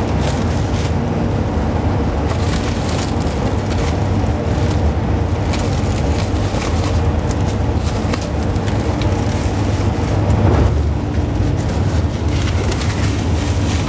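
Plastic cling film crinkling and crackling as it is rolled and wrapped around a soft potato-dough roll, over a loud, steady low machine hum.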